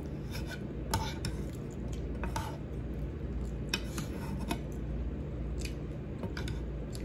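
Metal spoon scraping and clinking against a frying pan as food is scooped from it: a scattering of short scrapes and taps over a steady low hum.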